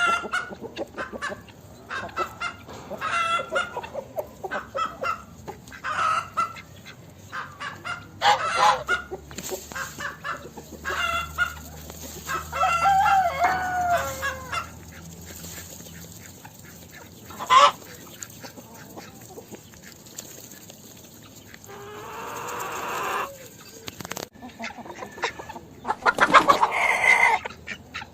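Hens clucking and cackling in a farmyard: a run of short repeated clucks, a longer falling call about halfway, and a loud burst of calling near the end.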